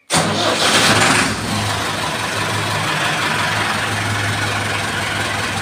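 Tractor diesel engine starting: it catches at once, loudest for about the first second, then settles into a steady idle.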